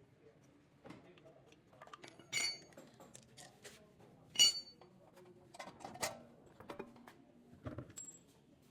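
Metal tools and parts clinking and knocking during brake disc removal, with two louder ringing metallic clanks about two and a half and four and a half seconds in.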